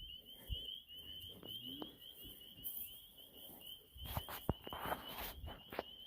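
Faint outdoor quiet with a steady, rapidly pulsing high-pitched chirping chorus in the background. A few soft knocks and rustles come between about four and five and a half seconds in.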